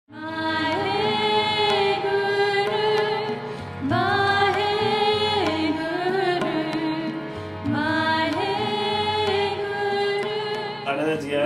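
Indian devotional music: three long, held melodic phrases of about four seconds each, over a steady low drone.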